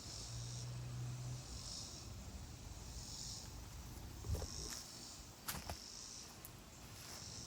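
Quiet outdoor ambience: a soft hiss swells and fades about every second and a half, with a couple of light knocks about halfway through.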